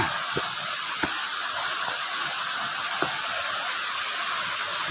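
Steady rushing of a nearby waterfall, with a few soft knocks about half a second, one second and three seconds in.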